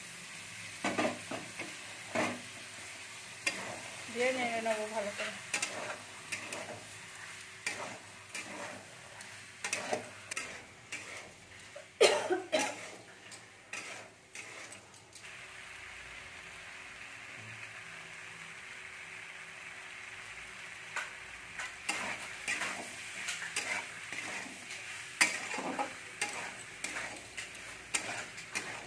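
Potatoes and peas sizzling in oil in a kadai while a spatula scrapes and knocks against the pan as they are stirred into the masala. The sharpest knock comes about twelve seconds in, and the sizzle runs on steadily in the second half.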